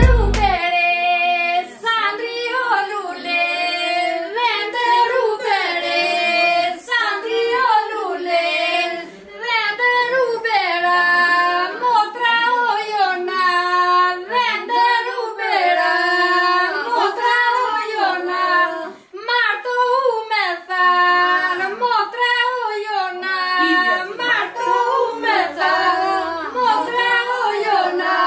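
A group of women singing an Albanian wedding song together, unaccompanied.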